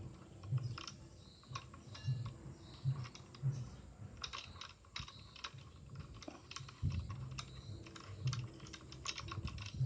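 Irregular small metallic clicks and light dull knocks of a scroll saw blade clamp being handled and unscrewed with an Allen key.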